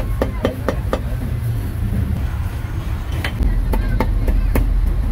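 Cleaver chopping grilled meat on a chopping block in quick, uneven strokes: four in the first second, a pause, then five more near the end. A low rumble runs underneath and grows louder past the middle.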